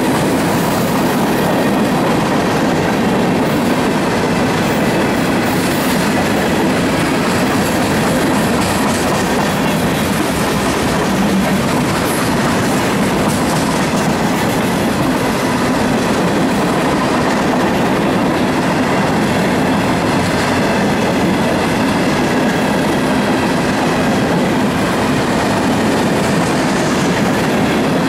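Freight train cars rolling steadily past, with the continuous noise of steel wheels running on the rails.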